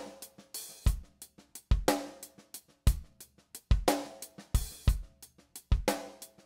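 Background music with a steady drum-kit beat: kick and snare strikes about once a second with quick hi-hat ticks between them, and a cymbal wash about half a second in and again near four and a half seconds.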